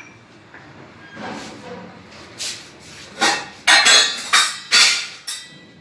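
A run of sharp knocks and clinks from small glass spice bowls being handled on a marble counter, starting about halfway through and bunching up near the end.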